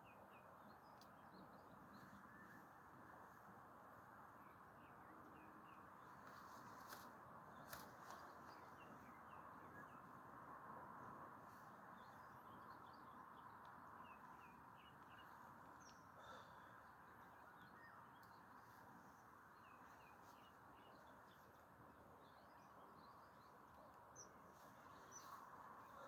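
Faint chirping of small birds, many short calls scattered throughout, over a steady background hiss, with two brief clicks about seven and eight seconds in.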